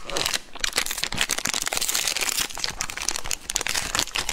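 Plastic wrapper of a Magnum Mini ice-cream bar crinkling and crackling as it is peeled open by hand.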